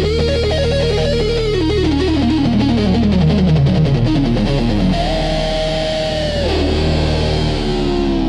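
Instrumental rock music: an electric guitar lead plays a quick descending run of notes, then long held notes that bend and slide down, over a steady low bass.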